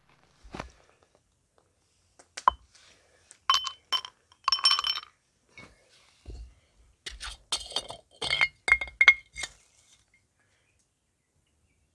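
Dishes and eating utensils clinking and scraping during a camp meal. A string of sharp clinks comes in loose clusters, some with a brief ringing tone.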